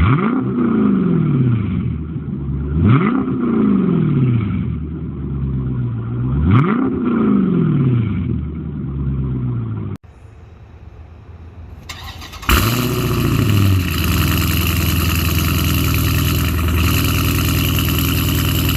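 Straight-piped 392 HEMI V8 exhaust blipped three times, each rev rising quickly and falling away. After a cut, the engine starts on the catless straight pipe about two-thirds through, with a short rev, and settles into a steady, loud idle.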